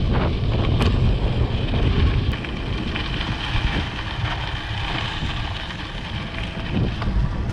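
Wind buffeting the microphone of an e-mountain bike being ridden, a steady low rumble with a noisy hiss above it.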